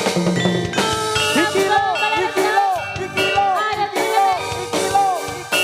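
Live campursari band music accompanying a jaranan dance, played between sung lines: sustained pitched mallet-percussion and instrument tones over a steady drum beat, with a repeated gliding tone that rises and falls about twice a second.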